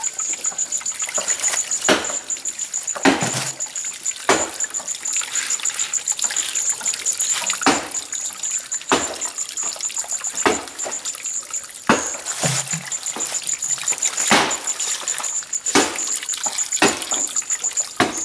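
Shallow water trickling and splashing as hands scoop and work in it, with a sharp splash every second or so. Over it runs a night insect's high, rapid, evenly pulsing trill.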